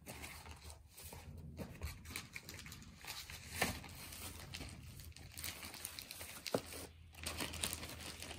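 Paper packaging rustling and crinkling as it is handled, with a few light knocks.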